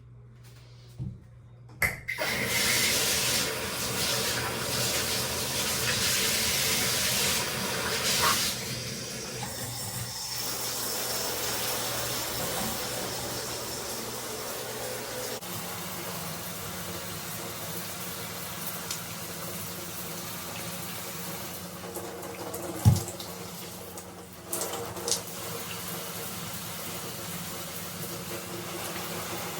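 Shower water running in a small bathroom: a click, then the spray comes on suddenly about two seconds in, loudest for the first few seconds before settling to a steady hiss. A single sharp knock stands out about two-thirds of the way through.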